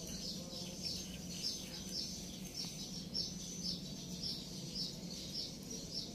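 A bird chirping over and over, short high chirps evenly spaced about twice a second, over a faint steady low hum.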